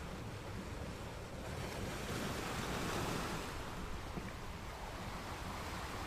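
Ocean waves washing in as surf: a continuous wash that swells to its loudest about three seconds in as a wave comes in, then eases back.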